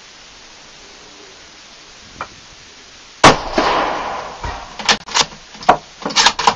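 A single .223 rifle shot, very loud and sharp, with about a second of echo rolling off after it, followed by a handful of shorter sharp knocks and clatter near the end.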